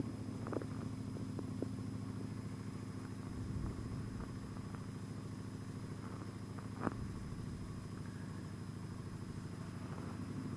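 Motorcycle engine running steadily at cruising speed, a low even rumble, with a few light knocks, the sharpest about seven seconds in.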